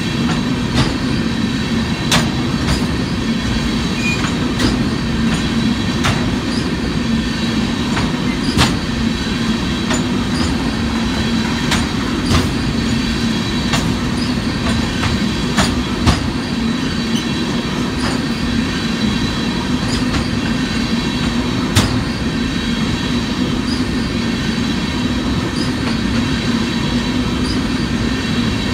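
Empty railroad tank cars of an oil train rolling past: a steady rumble of steel wheels on rail with a high steady whine, and sharp clicks every second or two.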